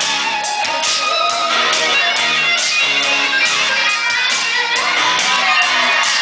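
Upbeat band music with electric guitar and a steady drum beat.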